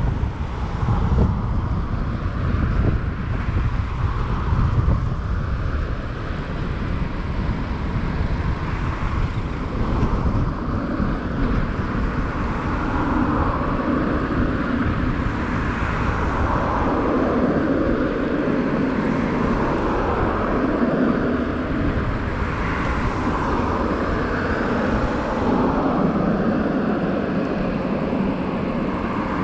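Wind rushing over the microphone and road noise from a hybrid bicycle being ridden, a continuous rush with heavy low buffeting for the first dozen seconds that then settles into a steadier mid-pitched roar.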